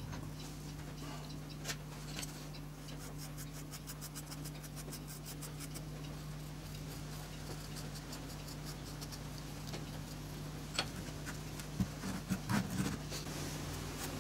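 Light scratching and fine ticking as loose moulding sand is picked and brushed out of an opened green-sand mould, over a faint steady hum, with a few louder clicks and knocks near the end.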